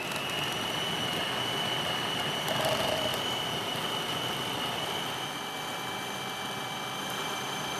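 Food processor motor running steadily with a high whine, its blade grinding sprouted buckwheat, raisins, oil and maple syrup into a thick dough.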